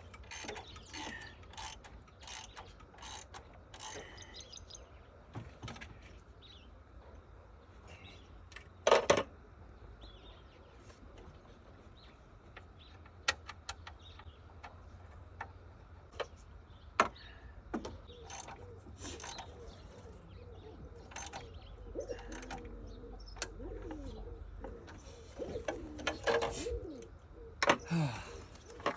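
Scattered clicks and knocks of hand work on a car's front end as the radiator fans are fitted, with a sharp louder knock about nine seconds in.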